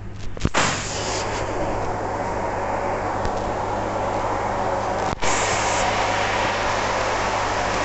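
WashTec SoftCare 2 Pro rollover car wash spraying water onto a foam-covered car: the jets come on suddenly about half a second in and hiss steadily over the low hum of the machine's pump. The spray cuts out for an instant about five seconds in, then resumes.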